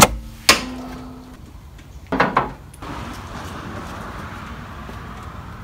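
Pickup truck's hood release being pulled and the hood opened: a sharp click at the start and another about half a second later, then a couple of knocks about two seconds in, followed by a steady faint hiss.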